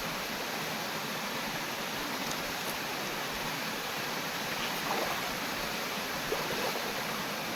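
Steady rush of flowing water from a rocky waterfall stream.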